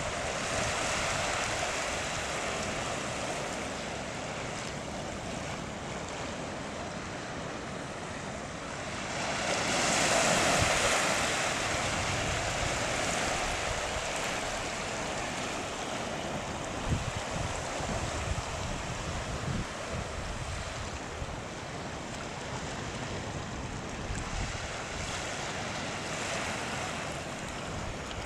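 Sea surf breaking and washing on rocks in a steady hiss, swelling loudest about ten seconds in, with wind gusting on the microphone.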